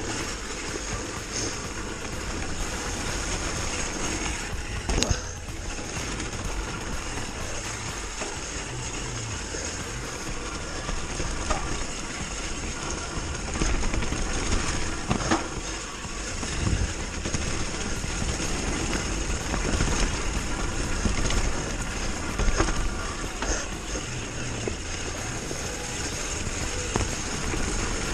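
A mountain bike rolling downhill over a dirt trail covered in dry leaves, with a steady rush of wind and tyre noise. Every few seconds there is a sharp knock or rattle from the bike as it hits bumps.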